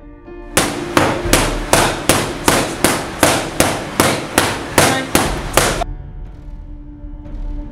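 Boxing gloves striking a trainer's focus mitts and strike shield in a rapid, even flurry of about fourteen punches, roughly two and a half a second, that stops suddenly about six seconds in. Quiet background music runs underneath and carries on alone after the punches stop.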